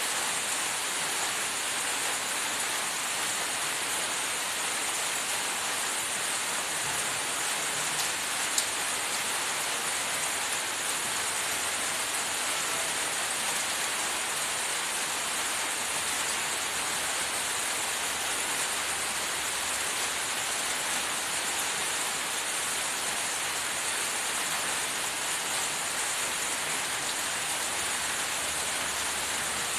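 Steady, even hiss with no change in level, broken only by a single sharp click about eight and a half seconds in.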